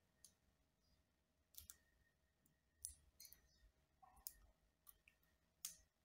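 Faint, sparse clicks of two cockatiels' beaks pecking and cracking seed in a dish, about seven irregular clicks in six seconds.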